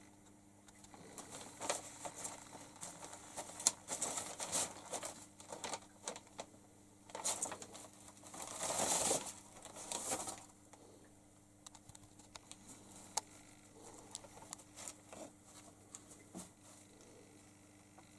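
Paper and plastic rustling and crinkling, with scattered light clicks and scratches, as a kitten clambers over a desk heaped with newspapers and papers. The longest and loudest crinkling comes about eight to ten seconds in.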